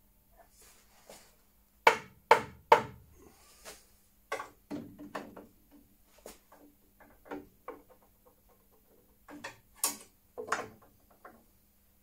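Wooden parts and hand tools knocking and tapping on a table saw's top as a clamped support piece is squared up: three loud knocks close together about two seconds in, then scattered lighter taps and clicks.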